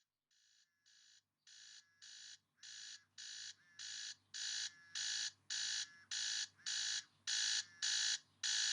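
Electronic alarm clock beeping with short buzzy beeps about twice a second, growing steadily louder from very faint to fairly loud.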